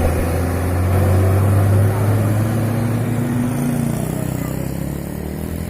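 Motor vehicle engines running close by: a low engine hum that is loudest in the first two seconds and eases off, with another engine coming in near the end.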